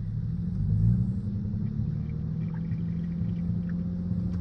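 The 28-year-old Lexus's engine idling, heard from inside the car as a steady low rumble and hum that swells briefly about a second in. It is running with a misfire, which the owner suspects comes from water in the fuel.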